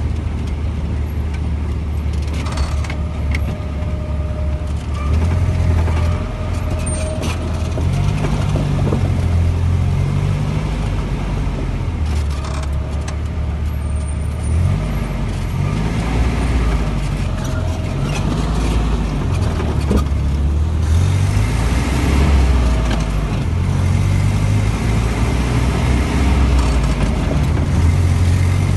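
A car driving in city traffic: steady low engine and road rumble, with the engine pitch rising and falling as it speeds up and slows.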